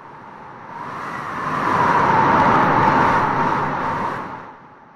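A long whoosh of noise that swells up over about two seconds, holds, then fades away near the end, with a faint tone inside it at its loudest.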